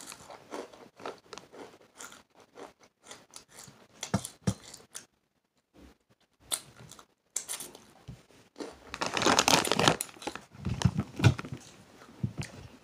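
Foil Takis chip bag crinkling and rustling in irregular bursts as a hand digs into it, loudest in a long stretch about nine to ten seconds in.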